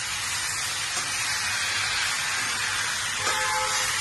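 Round potato slices sizzling in hot oil in a frying pan on the stove, a steady hiss as they are stirred with a spoon.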